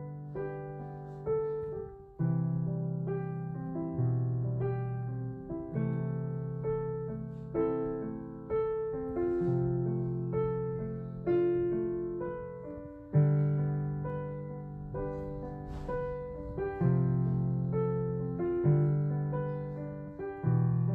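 Background piano music: gentle chords, each struck and left to fade before the next comes a second or two later.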